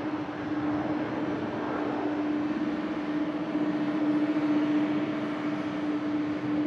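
Boeing 737-800's CFM56-7B turbofan engines at takeoff thrust as the jet lifts off and climbs out: a steady jet roar with a constant hum running through it, swelling a little midway.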